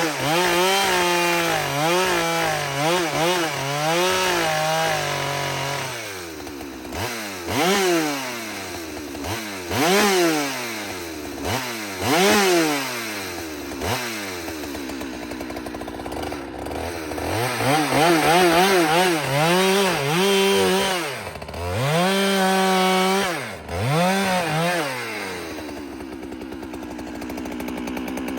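New Husqvarna 395 XP two-stroke chainsaw being revved up and down over and over, feathered short of wide open to break in the engine. Near the end it drops back to a steady idle.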